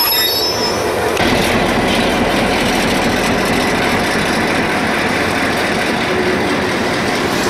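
New Zealand Railways DC class diesel-electric locomotive running close beneath, with its diesel engine and rail noise making a loud, steady din; a deep engine drone strengthens about a second in.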